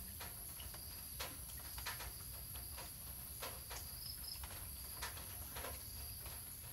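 Faint steady high insect buzz, with scattered soft clicks and taps from a puppy mouthing a hand and shifting its claws on a tiled floor. Two brief high chirps about four seconds in.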